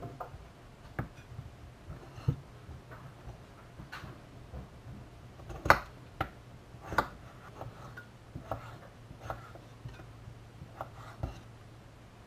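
Kitchen knife cutting potatoes into chunky chips on a chopping board: irregular knocks of the blade hitting the board, the loudest about six seconds in. A steady low hum runs underneath.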